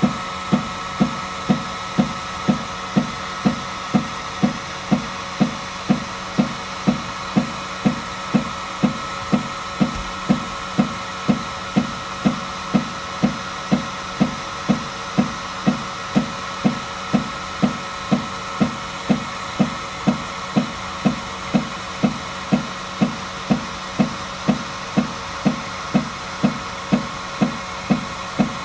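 FlashForge Adventure 3 3D printer knocking, about two knocks a second, over a steady running hum. This knocking comes while the first raft layer fails to extrude.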